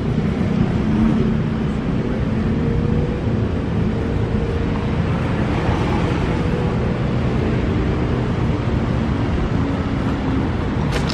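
Steady low rumble of a passenger train slowly approaching on the track, mixed with road-traffic noise, with a brief high hiss near the end.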